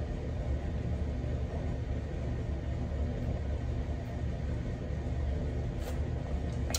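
Steady low rumble of background noise, with a couple of faint clicks near the end.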